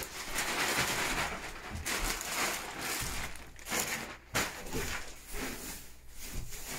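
Loose coop bedding being poured out and spread on the shed floor: a rustling hiss that comes in several swells.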